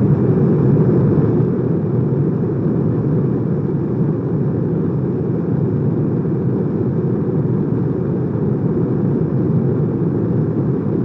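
A loud, steady, deep rushing rumble with no clear pitch, an unbroken sustained sound effect.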